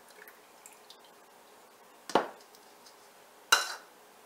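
Heavy cream poured into a plastic Nutribullet blender cup, dripping faintly, then two sharp knocks about a second and a half apart from a small container on a hard surface; the second knock rings briefly.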